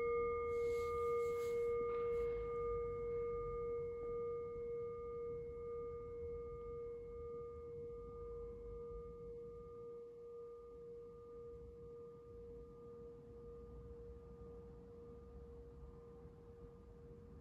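Brass singing bowl ringing out after a single mallet strike: a steady low tone with fainter higher overtones and a slow wavering pulse, fading gradually.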